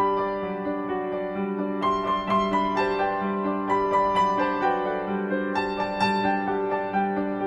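Background music led by piano: a gentle melody of struck notes over a steady pulse.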